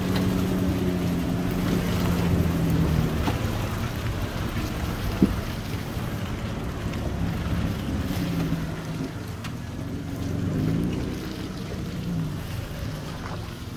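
Off-road SUV's engine running at low speed as it crawls along a rutted mud track. Its note is steady at first, then rises and falls a few times in the second half. A single sharp knock comes about five seconds in.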